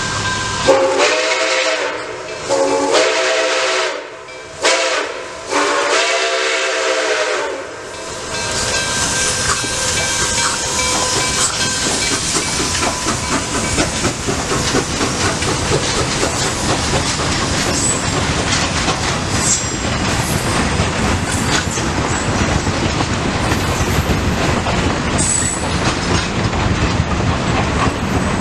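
Nickel Plate Road 765, a 2-8-4 Berkshire steam locomotive, sounding its chime whistle in four blasts, long, long, short, long, the grade-crossing signal. Then the locomotive and its passenger cars pass close by, rumbling and clattering over the rails.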